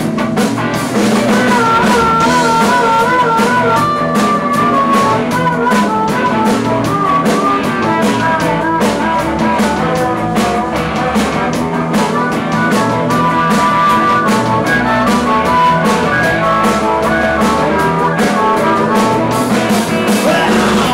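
Live blues-rock band playing: electric guitars and drum kit with a harmonica carrying a wavering lead line, and a singer coming in near the end.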